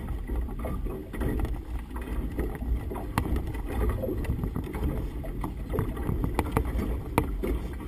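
Gusty wind rumbling on the microphone aboard a small motorboat on choppy water, with a hand-held flag flapping and scattered sharp clicks and ticks.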